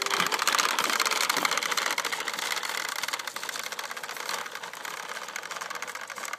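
Toy push lawnmower clattering as it is pushed over a rough driveway, a rapid steady clicking from its plastic mechanism and wheels that slowly gets quieter as it moves away.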